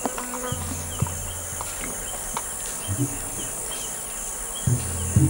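Forest insects making a steady high drone, with short chirps repeating higher up. A low steady hum comes in about half a second in, fades around the middle and returns near the end, where a couple of short knocks are heard.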